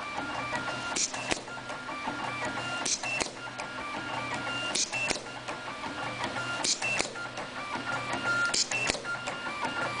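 EW-08B automatic wire cut-and-strip machine cycling on 12-pin ribbon cable. A high, stop-start whine from the roller feed runs between pairs of sharp clacks from the cutting and stripping stroke, each pair about a third of a second apart. The clacks come about every two seconds, five times in all.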